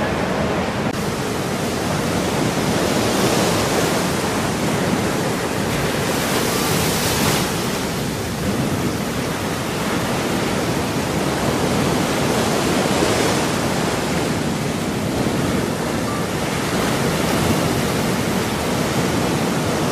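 Ocean surf breaking, a continuous rushing wash of white water that swells and eases now and then.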